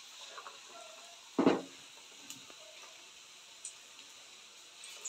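Battered potato slices deep-frying in hot oil in a steel kadhai, a faint steady sizzle with a few light ticks. One louder knock about a second and a half in.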